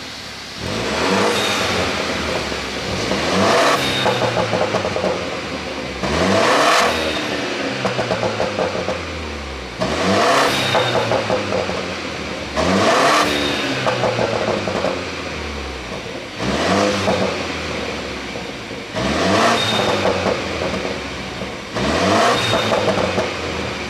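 BMW G30 520i's turbocharged four-cylinder revved repeatedly while parked, about eight blips in all. Each rev climbs and falls back, with a rapid string of exhaust pops and crackles on the overrun from the pop-sound tune.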